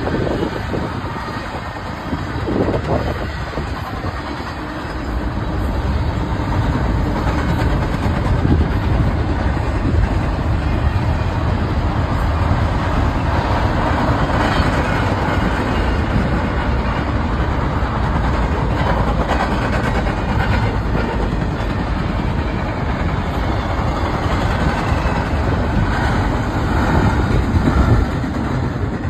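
Double-stack container train's well cars rolling past: a steady rumble of steel wheels on the rails with occasional clacks, dropping a little in level near the end.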